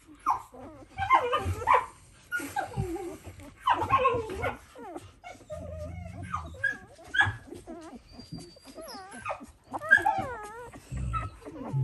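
Dalmatian whimpering and whining: many short, wavering cries one after another, with a few soft thumps from the whelping box.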